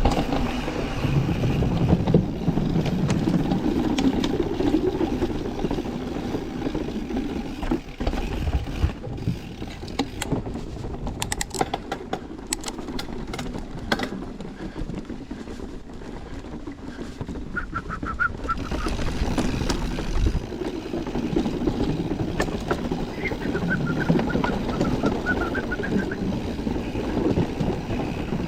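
Mountain bike riding down a trail: steady wind and tyre noise with rattles and clattering clicks partway through, and a couple of short high-pitched tones in the second half.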